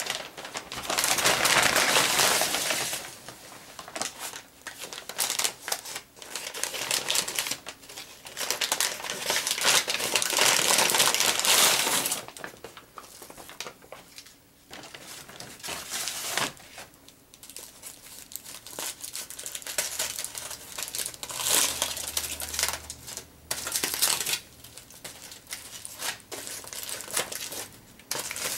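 Brown paper bag rustling and aluminium foil crinkling as a foil-wrapped sub sandwich is pulled out of the bag and unwrapped, in loud bursts of crinkling with short pauses between.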